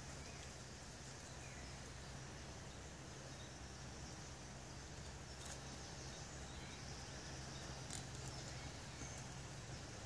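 Faint outdoor ambience: a steady high insect hum over a low steady hum, with a few faint chirps and a couple of short clicks in the second half.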